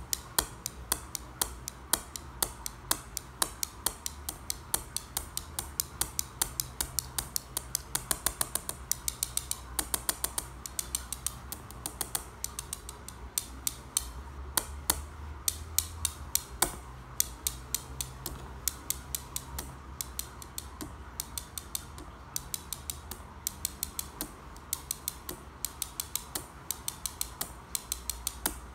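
Small blue pool tiles tapped against each other in patterns: a stream of sharp, light clicks, a few a second, with quicker runs now and then.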